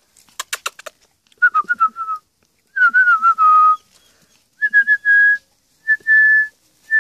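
A person whistling to call puppies: falling, wavering whistled phrases, then a few short notes and steady held whistles, higher and level. A quick run of about six sharp clicks comes just before the first whistle.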